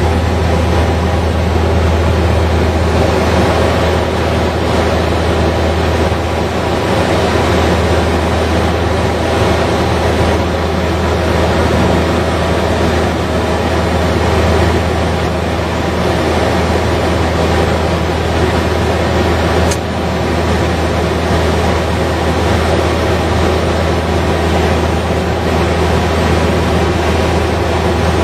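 Saab 340's twin General Electric CT7 turboprops and propellers droning steadily, heard from inside the cockpit on approach: a strong low hum with several steady tones over it.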